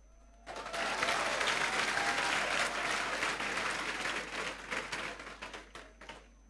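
Congregation applauding, starting about half a second in, then thinning out to a few last claps near the end.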